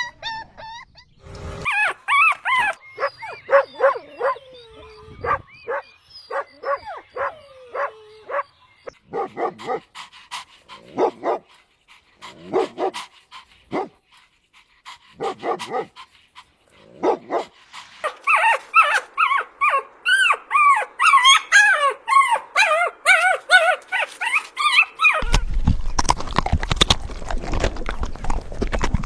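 Puppies whimpering and yipping in short, high-pitched cries, separate at first, then overlapping as several cry together a little past the middle. Near the end a rushing noise comes in over them.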